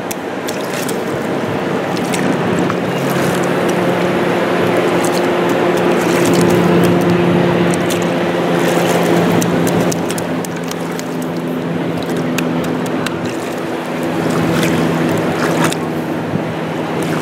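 Steady wash of surf and wind with a low, steady engine hum running through it, its pitch stepping down about midway, and scattered light clicks.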